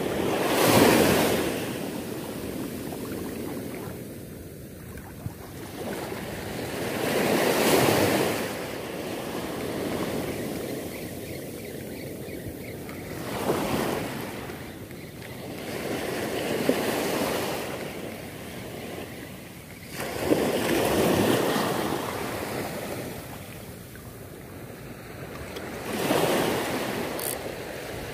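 Surf breaking on a beach, waves washing up and drawing back. The rush of water swells and fades about seven times, every three to five seconds.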